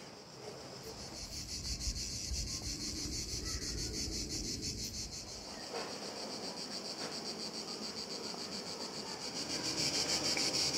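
Cicadas singing in the trees: a steady, high, finely pulsing buzz that grows louder near the end, with faint footsteps on the path.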